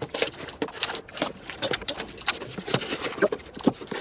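Knife blade slitting packing tape and cardboard on a small parcel box, heard as a quick, irregular run of scratches and ticks.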